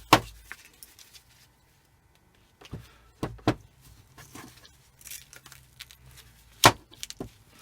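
Hand snips closing on small pieces of scrap metal: several sharp metallic clicks and snaps with pauses between them, the loudest near the end. The snips are not very sharp and struggle to cut.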